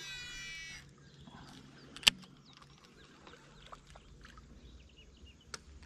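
Quiet background with faint bird chirps, a brief cluster of high sweeping calls at the start, and a single sharp click about two seconds in, with a smaller click near the end.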